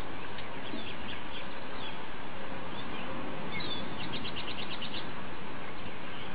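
Small birds chirping over a steady hiss, with scattered short chirps and, about four seconds in, a quick run of about nine short notes.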